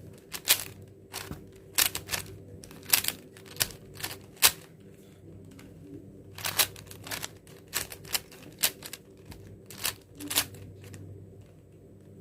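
A 4x4 Rubik's cube being turned by hand through an algorithm: quick plastic clacks of its layers snapping round, in irregular bursts with a short pause about halfway through.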